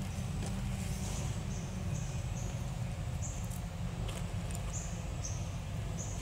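Outdoor ambience: a steady low rumble with short, high-pitched chirps repeating every half second to a second, and faint rustling as grass leaves are handled.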